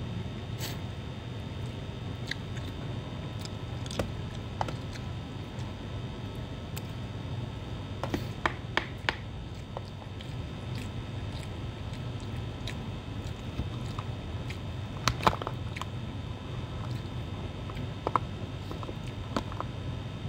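A person eating rice with a metal spoon: chewing, with scattered sharp clicks of the spoon against a plastic food container, a few of them in quick succession, over a steady low hum.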